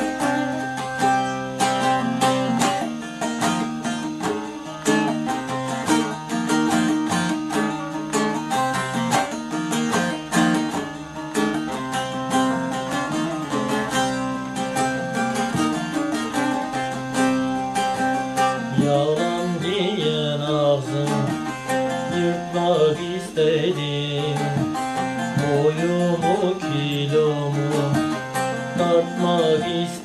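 Bağlama (long-necked Turkish saz) strummed fast as an instrumental passage. About twenty seconds in, a man's voice starts singing a folk song over it.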